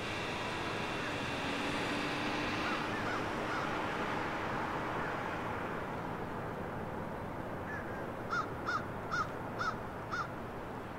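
A vehicle passes along a residential street, a steady rush of road noise that swells and fades over the first few seconds. Near the end a crow caws five times in quick succession.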